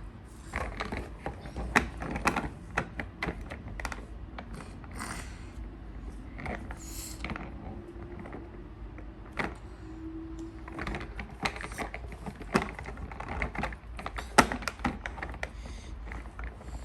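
Hard plastic Play-Doh toy parts clicking and knocking irregularly as they are handled and worked.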